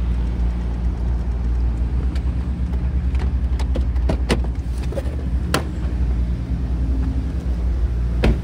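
Ice cream truck's engine running with a steady low rumble as it rolls slowly along the street, with several sharp clicks through the middle and one near the end.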